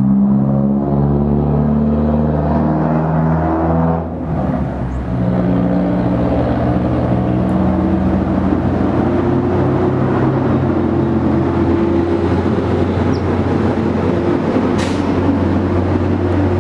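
Background music of sustained low synth chords, moving to a new chord about four seconds in.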